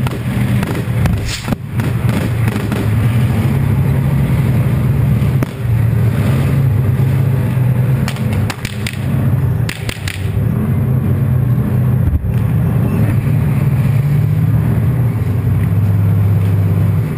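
A T-72 tank's V12 diesel engine runs steadily and loudly, heard from a camera mounted on the tank's front. A few sharp cracks cut through it: one about a second and a half in, a quick cluster around eight to ten seconds in, and one more near twelve seconds. Among them is the crack of a projectile flying past the tank.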